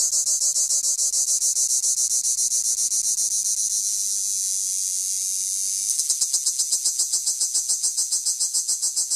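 Cicada singing close by: a loud, high-pitched pulsing buzz at about seven pulses a second, which merges into one continuous buzz for a couple of seconds around the middle before the pulsing comes back.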